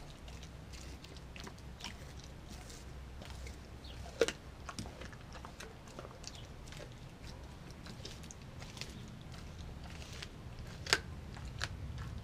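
A dog chewing and crunching raw chicken thigh on the bone, with wet clicks and crunches scattered throughout. Two sharp, loud cracks stand out, about four seconds in and again near the end.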